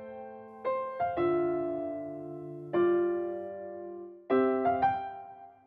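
Gentle piano background music: a slow series of chords, each struck and left to ring.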